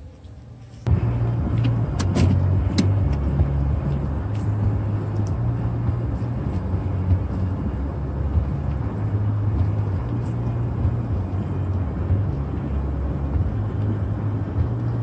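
Wind buffeting the phone's microphone: a loud, low, rough rumble that starts suddenly about a second in and keeps on, with a few handling clicks soon after it starts.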